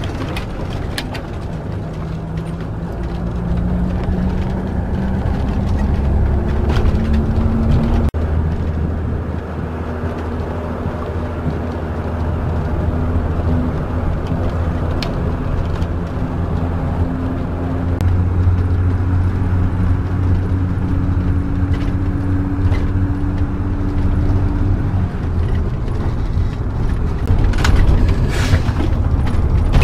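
Motorhome engine and road noise heard from inside the cab while driving, a heavy low rumble under a steady engine note. The engine note climbs, drops suddenly about eight seconds in, then climbs slowly again.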